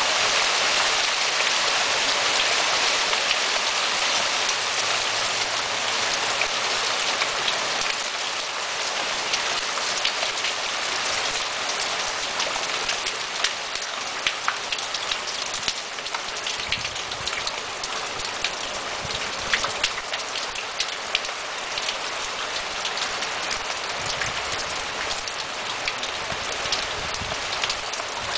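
Heavy rain mixed with hail falling on wet stone paving: a dense steady hiss full of sharp ticks from individual impacts. It is slightly louder for the first several seconds, then eases a little.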